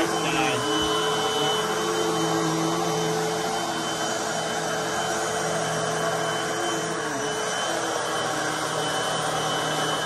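Hoover WindTunnel High Performance Pet upright vacuum cleaner running steadily as it is pushed back and forth over carpet, a constant whine over the rush of air. Its pitch dips briefly a couple of times, near the start and about seven seconds in.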